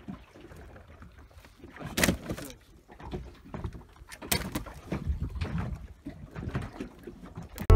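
Scattered knocks and clatters on a small fishing boat's deck, the loudest about two seconds in. From about four seconds in, a caught porgy is put into a plastic crate of fish, with several more knocks and thuds as the fish settle in the crate.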